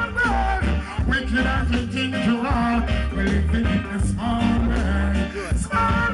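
Live reggae band playing loudly over a heavy bass line, with a voice singing over the music.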